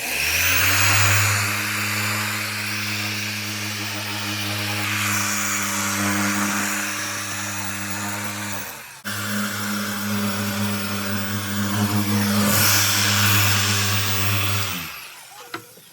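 Electric paint polisher running steadily on a freshly painted hood, its motor holding an even hum under a hiss. It stops briefly about nine seconds in, starts again, and shuts off near the end.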